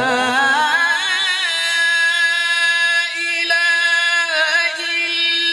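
Male Quran reciter's voice in melodic recitation, wavering and climbing through an ornamented run and then holding one long, steady note on a single long breath.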